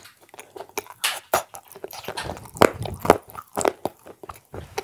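Close-miked chewing and crunching of food in a person's mouth: irregular crunches and clicks several times a second, loudest a little before the middle.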